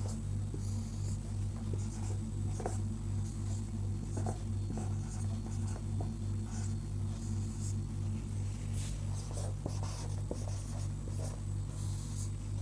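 Marker pen writing on a whiteboard: short scratching and squeaking strokes, letter by letter, over a steady low hum.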